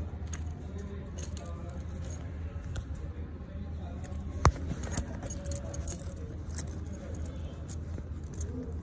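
Metal buckles and clips on a suede knife roll clinking and rattling as it is handled, with one sharp click about halfway through. A steady low rumble runs underneath.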